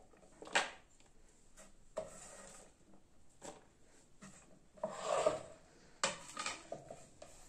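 Sliced okra gathered by hand off a wooden chopping board and dropped into a plastic bowl: soft rubbing and scraping with a few light knocks, the busiest handling about five seconds in.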